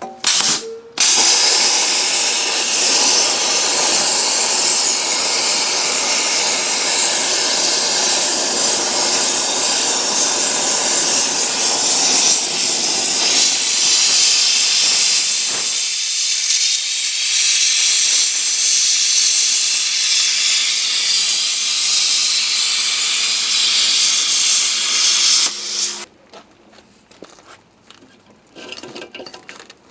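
Hypertherm Powermax 1000 plasma cutter's arc cutting through a lathe bed, a loud steady hiss. It starts with a brief burst, catches again about a second in, runs for about 25 seconds and cuts off near the end, followed by faint clinks.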